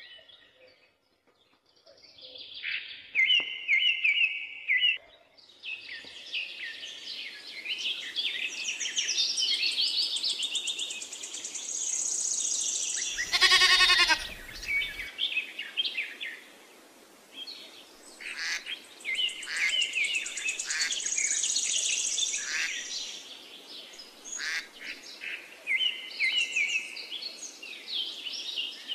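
Many songbirds chirping and trilling, a rural ambience track, with a single bleat about halfway through.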